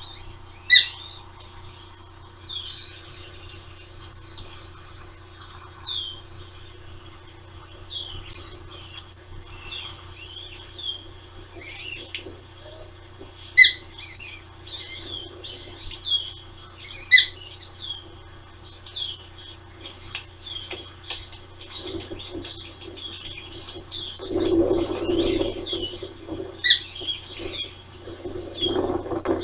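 Ospreys at the nest giving short, high whistled chirps, scattered at first and then coming in quick runs, with a few much louder calls. A low rushing noise joins about five seconds before the end.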